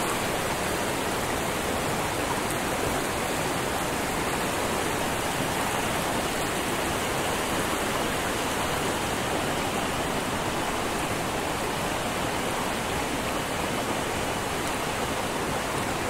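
Mountain stream rushing over rocks: a steady, even wash of running water.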